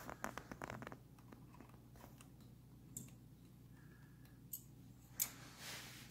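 Light clicks and knocks of hand tools and small metal parts being handled during work on a motorcycle's carburetor choke cable: a quick run of clicks in the first second, then a few single clicks, the sharpest about five seconds in.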